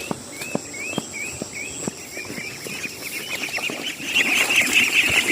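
Ducklings peeping: single up-curving peeps about twice a second, then about four seconds in a dense, louder chorus of many ducklings peeping together.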